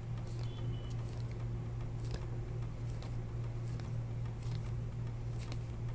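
Faint soft clicks and rustles of glossy Topps Chrome baseball cards being slid one behind another in the hands, over a steady low hum.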